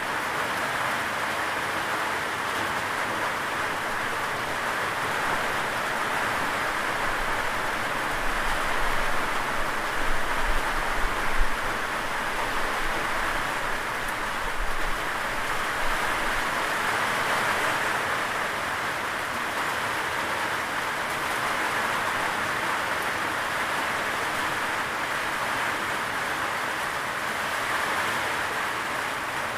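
Steady rain falling, an even hiss with no let-up. A low rumble comes in about a quarter of the way through, with a few louder peaks, and fades out by about halfway.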